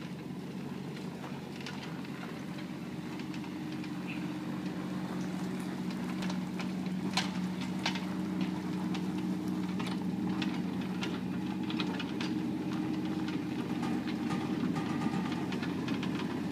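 Bobcat 324 mini excavator's diesel engine running steadily, growing gradually louder, with scattered light clicks.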